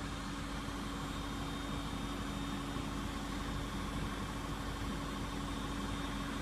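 A machine running steadily: an even mechanical hum with a constant low tone and no changes.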